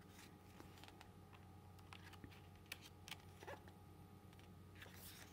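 Near silence with a few faint paper rustles and light taps as the pages of a K-pop album photo book are handled and turned, the strongest rustle near the end.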